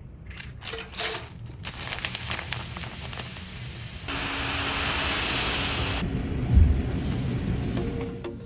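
Dried snack fryums crackling and sizzling in hot oil as they fry and puff up. The sound goes from scattered crackles to a dense, steady sizzle in the middle, then back to crackling. One low thump comes about two-thirds of the way through.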